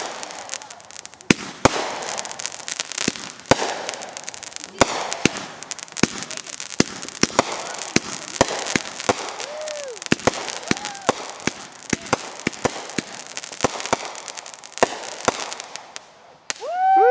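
Multi-shot aerial fireworks going off: a long, irregular string of sharp bangs over continuous crackling, dying away about 16 seconds in.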